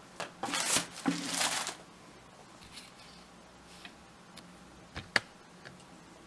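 Crepe paper rustling as a roll of it is unrolled and handled on a table: two bursts of rustling in the first two seconds, then quieter handling with a single sharp click about five seconds in.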